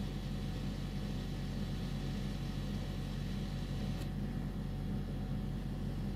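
A steady low hum with hiss, and a single click about four seconds in, after which the high hiss is quieter.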